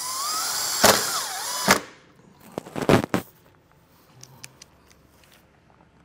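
Cordless impact driver running for about two seconds with a rising whine as it drives a self-tapping screw into the sheet-metal bumper, with two sharp clicks as the screw seats. A few light clicks follow about three seconds in.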